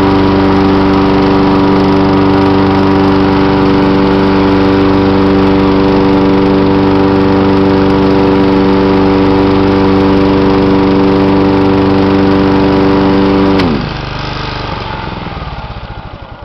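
1988 John Deere 14SE walk-behind mower's single-cylinder engine running at a steady speed, then shut off a little before the end: its pitch drops quickly and the sound winds down and fades away.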